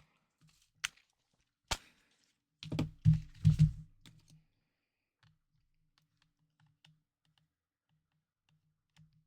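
Two sharp single clicks, then a short flurry of clicks and soft knocks about three seconds in, then faint scattered ticks: small hard plastic and metal parts being handled on a workbench.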